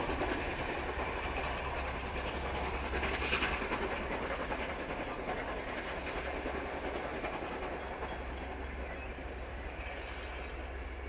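NSW C36-class steam locomotive 3642 working a passenger train, the locomotive and the carriages' wheels on the rails making a steady sound that fades slowly as the train draws away.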